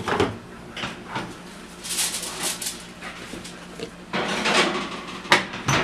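Kitchen handling noises as a foil-covered baking dish is put into a gas range oven: rustling and scraping in several bursts, the loudest about four seconds in, then two sharp knocks near the end as the oven door or rack shuts.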